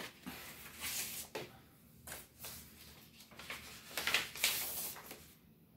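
Cardboard record jackets and paper sleeves rustling and scraping as they are handled, in several short bursts, the longest and loudest about four to five seconds in.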